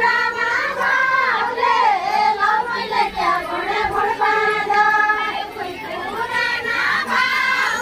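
A group of voices singing a deuda folk song together, with long held, wavering lines and no instruments.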